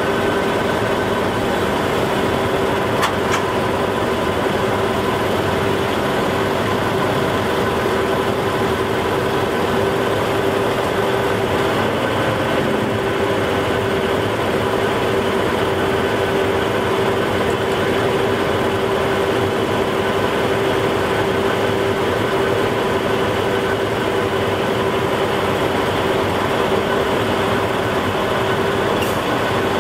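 Krupp M1500B diesel-hydraulic locomotive idling steadily, a constant engine drone with a steady hum on top.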